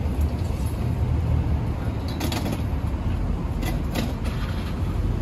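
Folding table being set up: a few sharp metallic clicks and clanks from its metal legs and frame, about two seconds in and again near four seconds in, over a steady low outdoor rumble.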